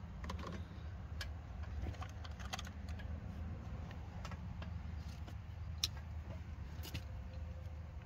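Scattered faint clicks and small rattles of hands handling crimp-on butt connectors and stripped wires, over a steady low hum.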